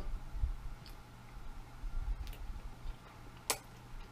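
A person chewing a mouthful of noodles, with a few sharp clicks, the loudest about three and a half seconds in, over a steady low hum.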